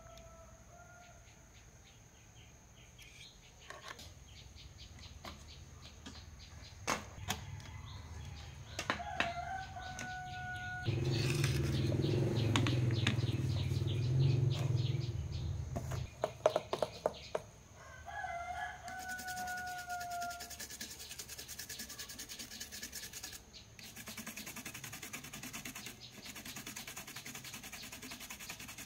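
Scattered clicks and taps of a circuit board and tools being handled. A low rumble swells for about five seconds in the middle. From about two-thirds of the way in, a toothbrush scrubs rapidly over the solder side of a TV power supply board, while a rooster crows three times in the background.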